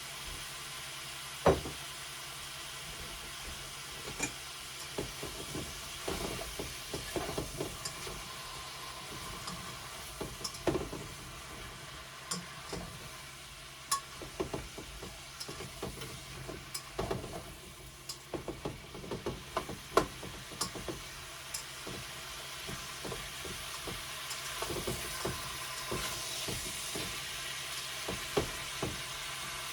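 Cucumber and shrimp sizzling in a frying pan as they stir-fry, with a cooking utensil repeatedly knocking and scraping against the pan; the sharpest knocks come about 1.5 s and 20 s in.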